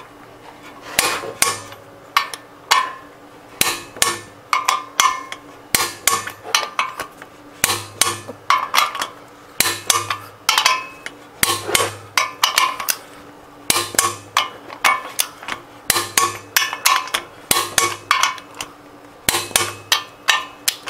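Ratcheting socket wrench clicking in short runs, with metal clinks, as the flex plate bolts are tightened and torqued to 75–85 ft-lb.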